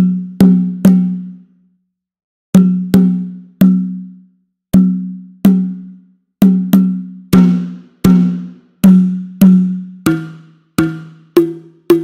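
Sampled tbilat, a pair of small clay hand drums from Soundiron's Tbilat Drum Kontakt library, played one hit at a time. About twenty hollow, pitched strikes ring out for about a second each in an uneven rhythm that quickens as it goes on. About ten seconds in, the main note drops lower.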